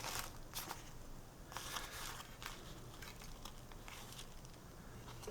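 Faint rustling and light clicks of small parts and paper being handled and turned over during bench soldering, a handful in the first couple of seconds and then quieter, over a low steady hum.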